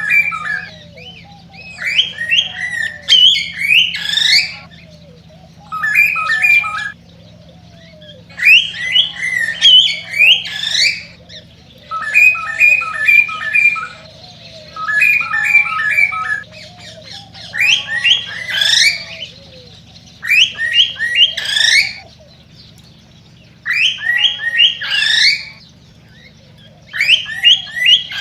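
Male cockatiel singing its excited courtship song: a string of short phrases with brief pauses between, some made of rapid repeated chirps and others ending in rising whistled notes.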